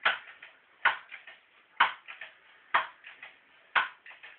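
Crosman Pumpmaster 760 air rifle's pump lever being worked stroke after stroke. Each stroke gives one sharp clack, followed by a few lighter clicks, about once a second, and the strokes come slightly slower as the pumping goes on.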